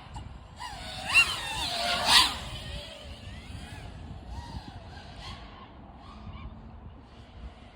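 GEPRC Vapor X5 FPV quadcopter's brushless motors whining. The pitch glides up and down with the throttle, with a loud surge and two sharp peaks about one to two seconds in, then settles into a quieter whine.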